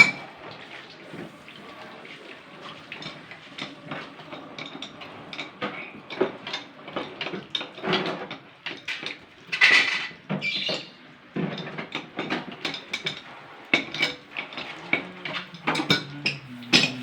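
Irregular clinking and knocking of hard metal objects being handled, many short strikes spread unevenly, with a louder cluster about two-thirds of the way through.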